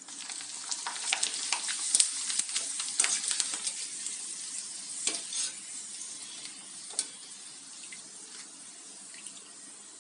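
Sun-dried potato chips in hot oil in a metal kadai, the oil sizzling and crackling while a wire-mesh skimmer stirs and lifts the fried chips. The crackling is densest in the first few seconds and thins out toward the end.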